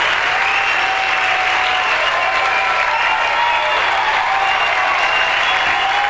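A large live audience applauding steadily, a dense wash of clapping at the close of a comedy set.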